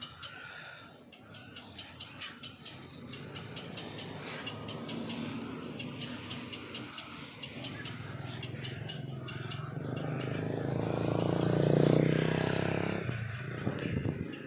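A motor engine approaching and passing, growing louder to a peak about twelve seconds in and then fading quickly, over rapid clicking chatter in the first part.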